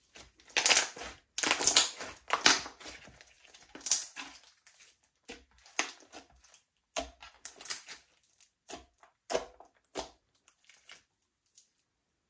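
Slime being squished and mixed by hand, a run of irregular squishing and popping noises. They are thick in the first four seconds, thin out after that, and stop a little before the end.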